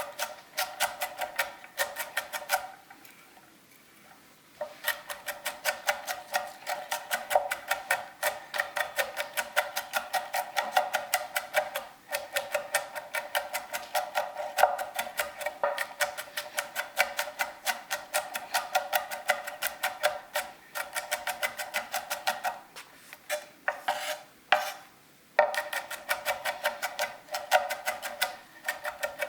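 Carbon-steel gyuto knife chopping on a cutting board in quick, steady taps, about four or five a second, with short breaks about three seconds in and again about five seconds before the end.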